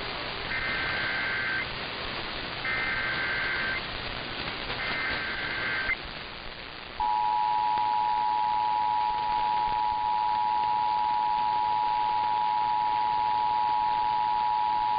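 Emergency Alert System activation tones over a hissing radio broadcast: three short SAME header data bursts of about a second each, then, from about seven seconds in, the steady two-tone EAS attention signal. The header bursts carry the alert's coded event and area, opening a relayed severe thunderstorm warning.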